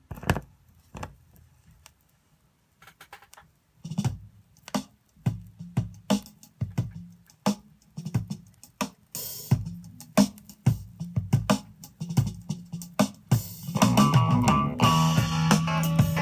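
Vinyl record playing on a Fisher MT-420 turntable through the speakers: a thump as the stylus sets down, then a song opening with separate drum hits that settle into a steady beat, and a full band with guitar and bass coming in near the end.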